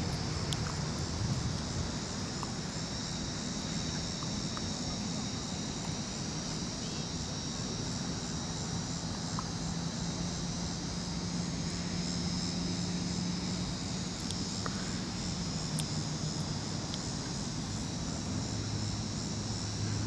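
Outdoor park ambience: insects chirring in a steady, unbroken high drone, over a low steady hum.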